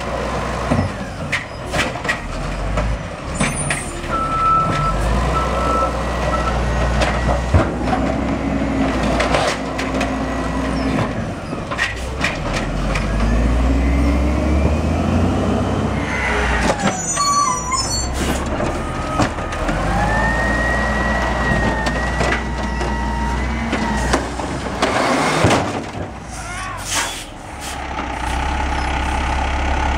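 Automated side-loading garbage trucks at work: diesel engine running under load, the hydraulic lift arm whining as it raises and dumps carts, repeated clanks and bangs of the carts slamming against the hopper, and hisses of air brakes.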